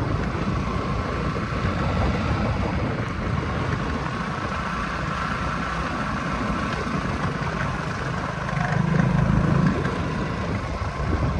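A vehicle's engine running steadily with a low rumble, swelling briefly a little before the end.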